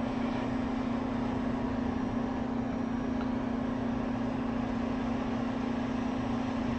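Hot air rework station blowing steadily with a constant hum, heating a touch IC chip to reflow its solder onto an iPhone 6 Plus logic board.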